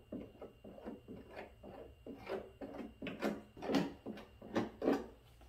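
A glue squeegee scraping back and forth over an adhesive-coated patch on the wall of a hollow polyethylene tank, spreading the adhesive. Short scraping strokes, about three a second, grow louder from about two seconds in.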